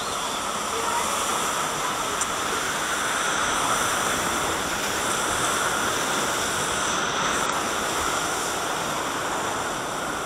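Steady rushing, churning water of a river rapids ride channel, with water splashing against the raft and the channel's wooden walls.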